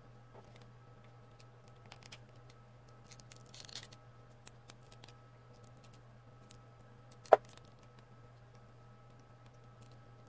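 Scattered small clicks and a brief rustle of handling over a steady low electrical hum, with one sharp click about seven seconds in.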